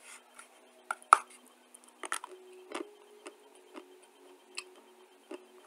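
Dry clay lumps being bitten and chewed: a string of sharp, crisp crunches, the loudest about a second in, then lighter ones every half second or so.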